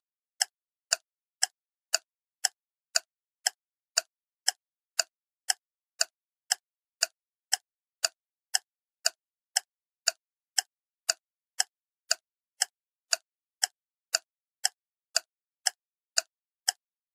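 Short, sharp ticks repeating evenly about twice a second, with silence between them, like a clock or metronome ticking.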